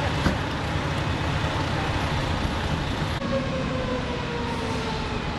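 Fire truck engines running with a steady, noisy rumble. About three seconds in, a siren is heard faintly, slowly winding down in pitch.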